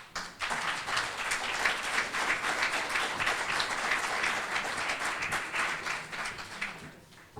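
Audience applauding, a dense patter of many hands clapping that starts just after the beginning and dies away near the end.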